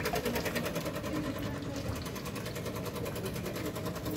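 Coffee vending machine running: a steady mechanical hum with a fast, even pulsing rattle.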